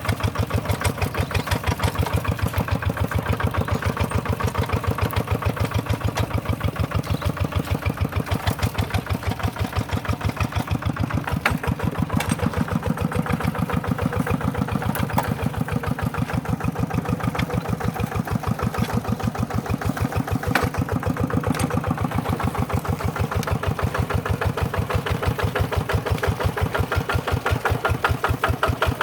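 Tractor engine running steadily under load, with an even, rapid pulsing beat.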